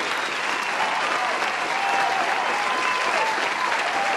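A crowd applauding at a steady level, with some cheering voices mixed in.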